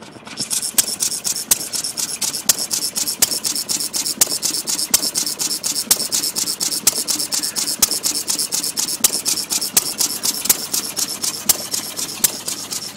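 Fairbanks Morse Z single-cylinder gas engine running, with a sharp exhaust bang about once a second and lighter mechanical clicks between the bangs.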